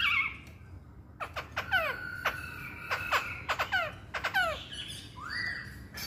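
Black-throated laughingthrush (poksay hongkong) singing: after the end of a warbled phrase and a short pause, a run of loud, clear whistles, each sliding steeply down in pitch, then a rising whistled note near the end.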